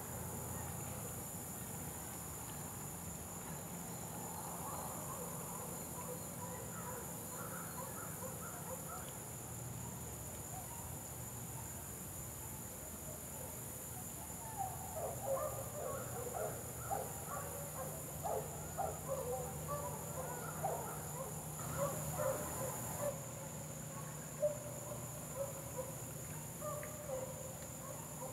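Insects singing in a steady, high-pitched drone. About halfway through, a flurry of short chirping calls joins in for several seconds.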